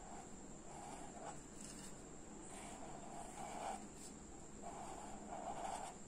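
Faint strokes of a felt-tip marker on notebook paper: soft scratching in a few runs, each half a second to a second long, as lobes are drawn.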